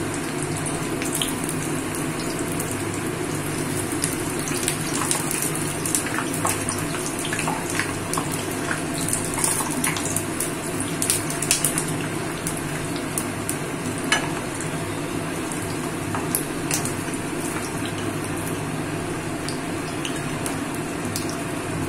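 Besan-battered shiuli leaf fritters frying in hot oil in a kadai: a steady sizzle with many small crackles, and now and then a metal spatula scraping in the pan as the fritters are turned.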